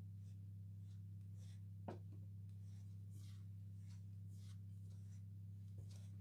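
Faint irregular scraping strokes, about two a second, over a steady low electrical hum, with one sharp click about two seconds in.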